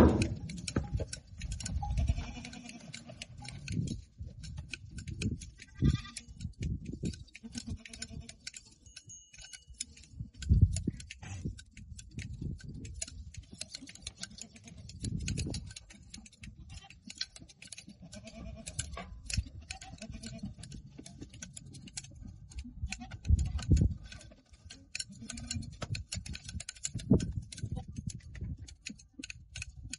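Goats bleating now and then over a steady patter of small clicks from shears cutting goat hair, with irregular low bumps.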